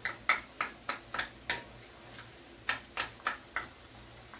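Wooden spatula stirring sauce in a wok, knocking against the pan about three times a second, in two runs with a short pause between them.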